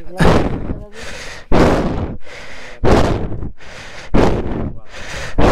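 A person panting hard close to the microphone: about five heavy breaths, one every second and a bit, each a sudden puff that trails off. It is the sound of someone out of breath from hard physical effort.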